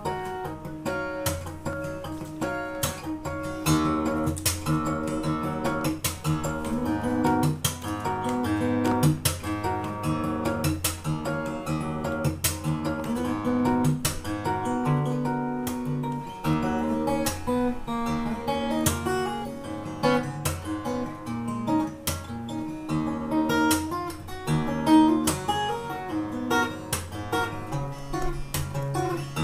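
Handmade Jason Kostal steel-string acoustic guitar played solo fingerstyle: a plucked melody over bass notes, with many sharp note attacks and no pauses.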